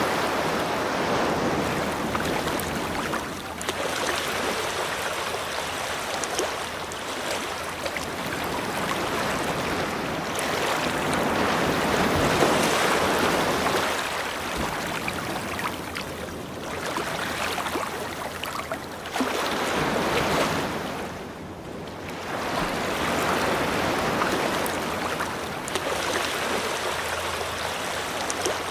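Ocean waves breaking and washing onto a beach, the surf swelling and easing every few seconds.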